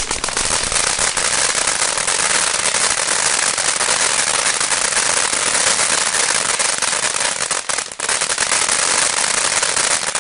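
Consumer ground firework fountain spraying crackling stars: a loud, dense, continuous crackle of many tiny pops, with a brief dip about three-quarters of the way through.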